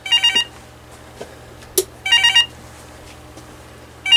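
VTech CS6124 cordless handset sounding its page tone from a find-handset call: three short electronic warbling rings about two seconds apart, not very loud. A single sharp click just before the second ring.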